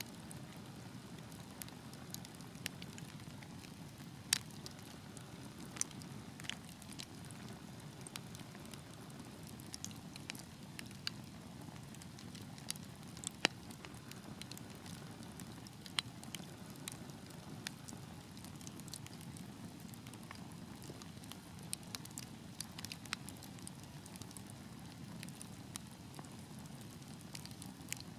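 Wood fire burning in a fireplace: a steady low rush of flames with irregular sharp crackles and pops, a few of them louder snaps.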